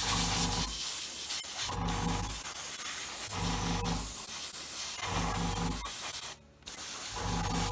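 Airbrush spraying gloss black acrylic base coat: a steady hiss of air and paint. Under it a low hum swells and fades about every second and a half. The hiss cuts out briefly about six and a half seconds in.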